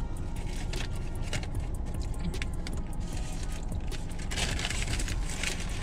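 Paper bag and burger wrapper crinkling and rustling as they are handled, in short crackles with a denser stretch of rustling near the end, over a steady low hum inside the car.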